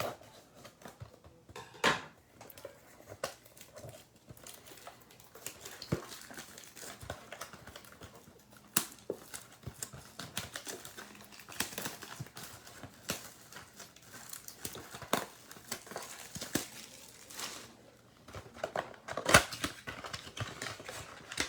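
A cardboard box of Donruss baseball card packs being opened and the foil packs taken out by hand: irregular clicks, taps and crinkling of cardboard and wrappers.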